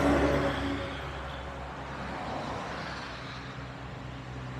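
A road vehicle going past, its engine hum loudest right at the start and then easing into a steady drone of traffic.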